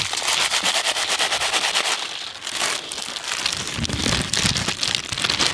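Dense crackling and rustling of Lay's potato chips being emptied from their foil packets and crushed onto a large steel tray, with the crinkle of the packets.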